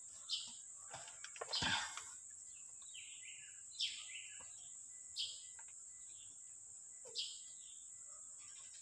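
A bird chirping, short falling calls every second or two, over a steady high-pitched hiss; a single louder knock comes about a second and a half in.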